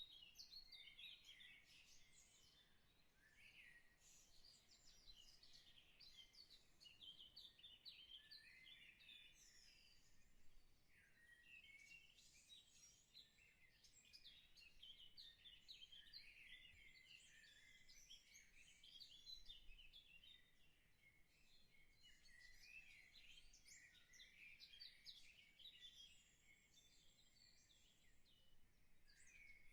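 Faint birdsong: many quick, high chirps and trills, overlapping without a break.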